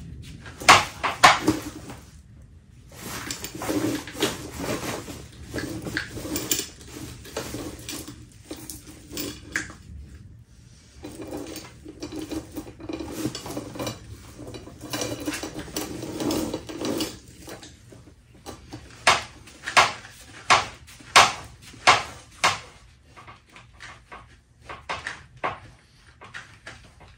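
Steel chainsaw chain clinking and rattling as it is wound by hand off a loose loop onto a wire spool, with a run of sharp, separate clinks about two a second in the last third.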